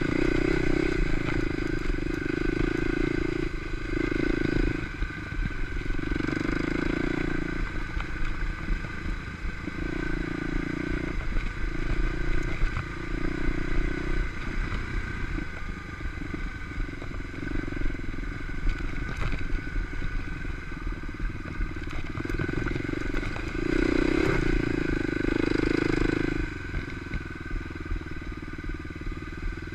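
Kawasaki KLX250 dirt bike's single-cylinder four-stroke engine being ridden over a rocky trail, the throttle opened and rolled off again and again in bursts of a second or two, with a longer pull near the end.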